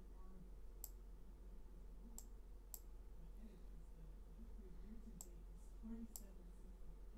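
Five faint, sharp clicks spread unevenly over several seconds, from clicking while drawing at a computer, over a low steady hum.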